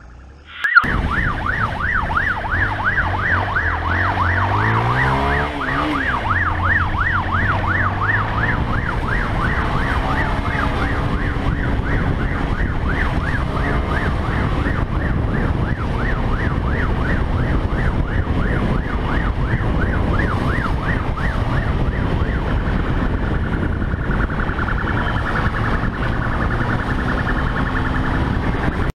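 Police siren on a rapid yelp, rising and falling about four times a second, starting abruptly about a second in. Under it a motorcycle engine revs up and down, with wind rushing past.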